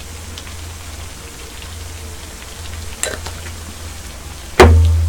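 Beef and radish sizzling in a pot, a steady hiss. A small click about three seconds in, then a sharp knock a moment before the end.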